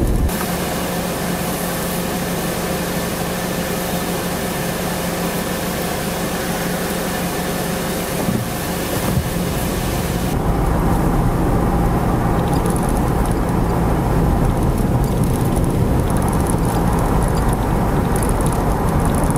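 Steady car engine hum and road noise heard from inside a vehicle. About ten seconds in it changes abruptly to a louder, rougher rumble of tyres on a snow-covered road.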